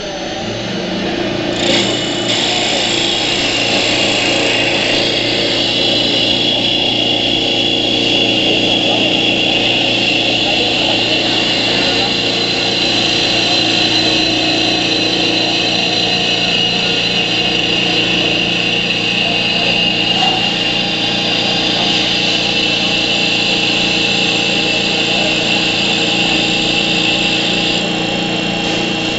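CW-1020 automatic CNC wood lathe running and cutting a spinning wooden blank. A steady machine hum carries a high whine that starts about two seconds in and stops shortly before the end.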